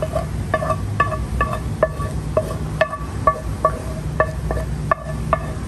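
Background music: a plucked guitar picking short, ringing notes at about three a second, over a low steady hum.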